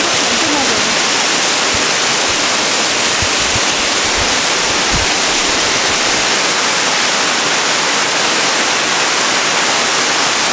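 Lady Barron Falls pouring down close by: a steady, loud rush of falling water with no change in level. A few faint low thumps sit underneath it.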